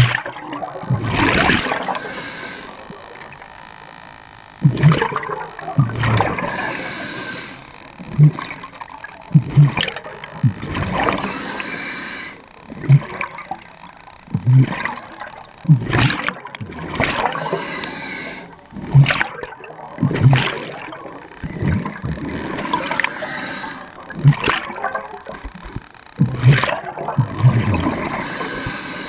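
Underwater bubbling and water rushing past the camera as a diver swims, in repeated surges about every second and a half.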